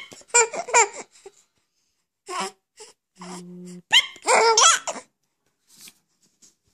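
Baby laughing in short high-pitched bursts, twice: once near the start and again about four seconds in. Between them comes a short, low, steady "beemp" tone lasting about half a second, and the baby laughs right after it.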